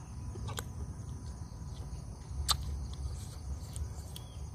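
Someone chewing grilled squid, with a few sharp mouth clicks, over a steady low rumble of background noise.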